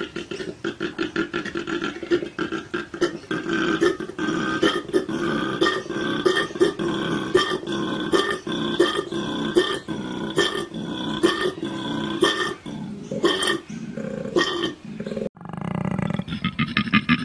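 Koala bellowing: a long run of rapid, deep pulses. The bellow breaks off briefly about fifteen seconds in, then starts again.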